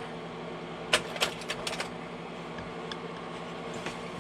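Kodak Carousel 850H slide projector with its cooling fan humming steadily, while the slide-change mechanism clacks through a cycle about a second in: one sharp click, then a quick run of lighter clicks as the tray steps back a slide.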